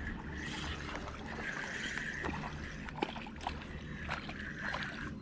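Spinning reel cranked in two short spells during a retrieve of a small jig, with light clicks and rod handling noise.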